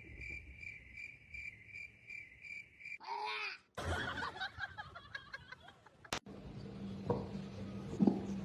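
Insect chirping, a steady pulsing trill of about three pulses a second, that stops about three seconds in. Mixed rustling sounds follow, then a sharp click about six seconds in and a low steady hum.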